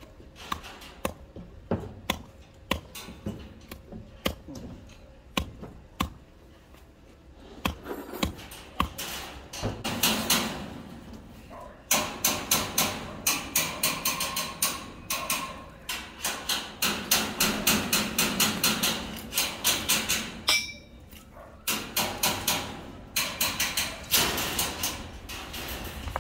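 A small hand tool chopping and scraping into gravelly soil to dig out weeds: scattered strikes at first, then fast, regular chopping, about two or three strokes a second, from about halfway through.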